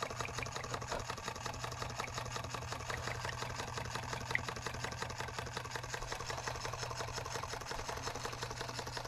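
Model Rider-Ericsson hot air pumping engine running steadily, its linkages and pump making a fast, even clatter of light clicks over a low hum. A single louder click comes about four seconds in.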